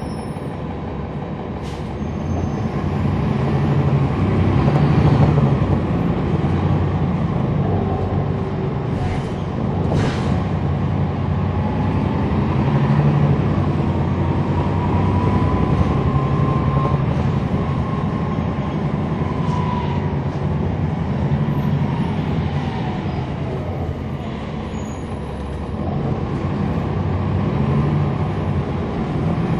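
Cabin sound from the rear of a NABI 40-foot transit bus with a Cummins ISL9 inline-six diesel and a ZF Ecolife six-speed automatic: the engine runs steadily, swelling and easing several times as the bus pulls away and slows. Through the middle a faint whine glides up in pitch and back down, and a few sharp clicks or rattles come in the first third.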